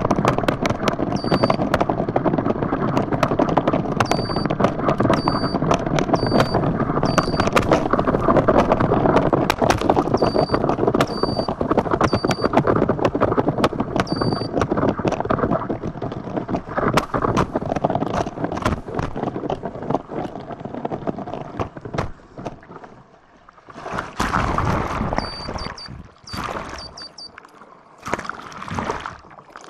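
Kiteboard running fast over water: a dense rushing hiss of water under the board, with many sharp slaps and clicks as it hits the chop. Short high beeps recur over it. The rush thins out past the middle and returns in short spray-like bursts near the end.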